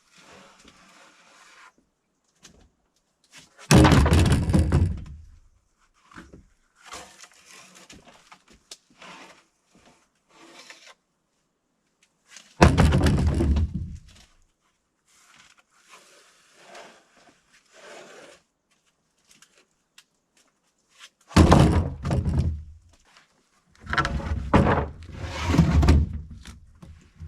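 Lumber (2x6 boards) being pulled from a stack and dropped, landing with heavy wooden thunks about four times, the last ones close together near the end, with lighter scraping and knocks between them.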